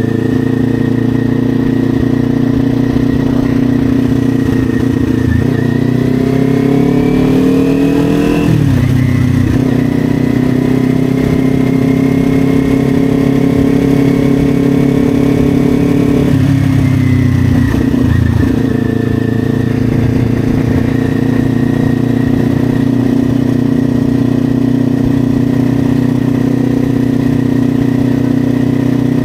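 Kawasaki Ninja 400's parallel-twin engine heard from on the bike while riding. It rises in pitch about five seconds in as it accelerates and drops sharply at a gear change, then holds a steady cruise. It falls away briefly around the middle before settling to a steady cruise again.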